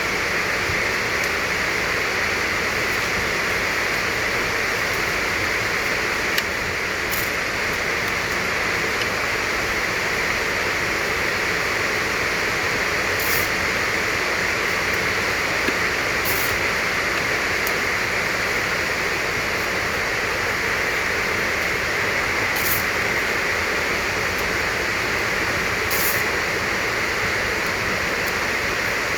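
Steady, even rushing hiss of background noise, with a handful of faint, brief light ticks scattered through it.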